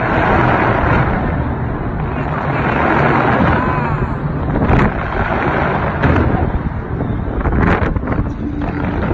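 Fireworks bursting in a dense, continuous barrage of bangs and crackle, with sharper single bangs about halfway through and again near the end.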